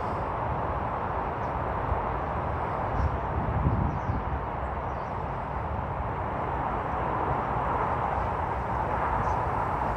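Steady outdoor rushing noise with low wind buffeting on a phone microphone, and a few faint, short, high bird calls from starlings gathered for the roost.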